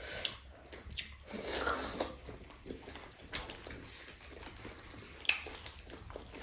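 Scattered clicks and rustles of people eating and handling food and packaging at a table, with a louder rustle about a second and a half in and two sharp clicks later on.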